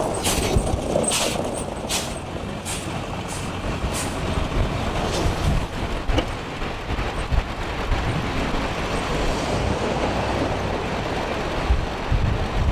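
Motor vehicle running in a snowstorm: a steady engine and road rumble, with several short hissing bursts in the first few seconds.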